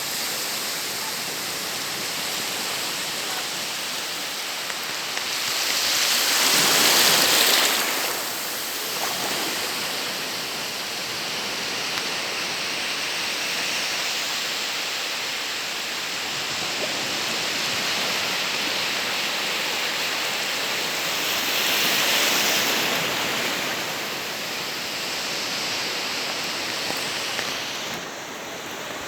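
Ocean surf on a beach: a steady hiss of waves, with two louder breakers that swell and fade, one about six seconds in and one about twenty-two seconds in.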